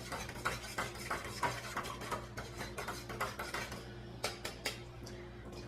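Light metal clinks and scrapes of a utensil against a cooking pot, coming irregularly a few times a second, over a steady low hum.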